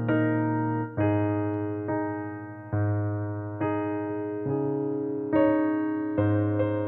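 Electric piano playing a slow hymn accompaniment. A new chord is struck roughly every second and fades before the next.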